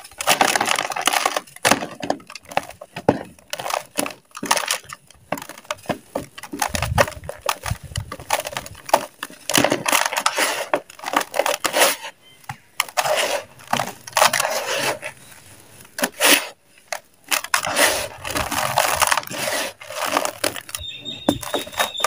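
A bar of dry mud crumbling and crunching in the hands, with dry crumbs and dirt falling into a plastic tub. Later, hands squeeze and sift the loose dry dirt, giving irregular crackles and crunches.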